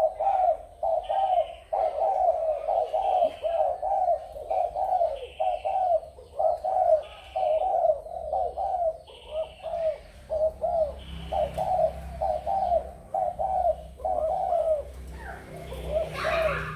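Spotted doves cooing over and over in quick repeated phrases. A faint high note sounds about once a second behind them, and there is a short noisy burst near the end.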